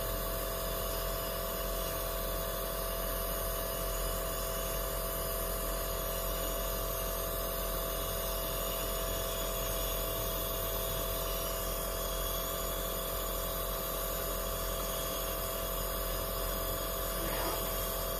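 Compressor nebulizer running, its small pump giving a steady buzzing hum while it turns a soda solution into mist. It cuts off suddenly at the very end.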